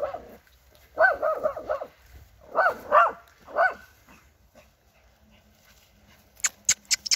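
Young Jagdterrier barking at a wild boar in four quick runs of high, sharp barks over about four seconds. After a short lull, a few sharp clicks or knocks come near the end.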